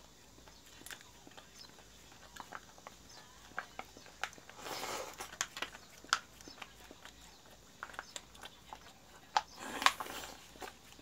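A Jindo dog licking ice cream from a plastic cup: a run of small wet clicks from its tongue and mouth, with two longer noisy stretches, one about halfway and a louder one near the end.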